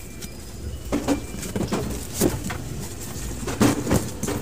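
Cardboard box being opened and its contents handled: irregular rustling, scraping and knocks.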